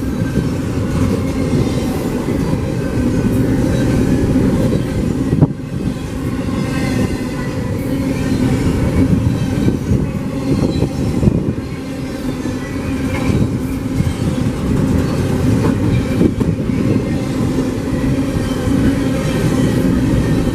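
Railcars of a CPKC train rolling past: a steady, loud rumble of wheels on rail with clicking over the joints and a faint high wheel squeal at times. A sharp knock comes about five seconds in.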